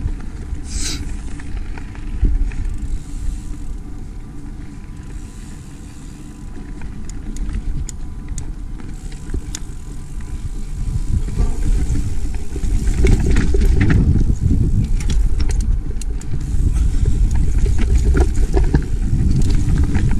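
Mountain bike rolling along a dirt and rocky singletrack: a low rumble from the tyres, with clicks and rattles from the bike over rocks. It eases off for a few seconds around the middle, then gets louder and rougher in the second half.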